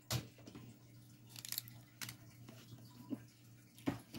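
Scattered light clicks and taps of small craft tools and nail supplies being handled on a desk, the sharpest just after the start and again near the end, over a faint steady hum.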